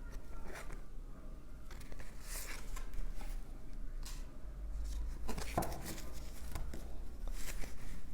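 Oracle cards being handled on a table: scattered soft rustles and light clicks of card stock sliding and tapping, over a low steady hum.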